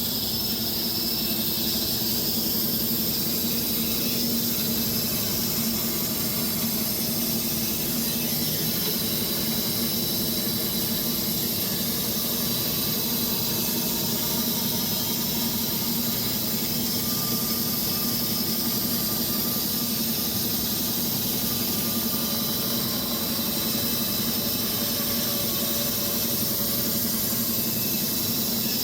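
Wood-Mizer LX250 electric band sawmill running steadily with its blade cutting through hardwood logs: a high hiss and squeal over a steady motor hum.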